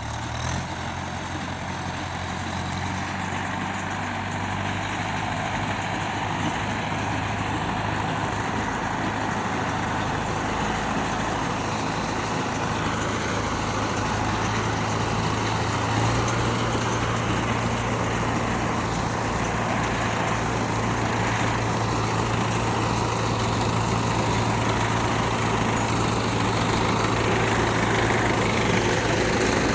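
Mahindra 475 Yuvo tractor's diesel engine running steadily under load, with its hum gradually growing louder.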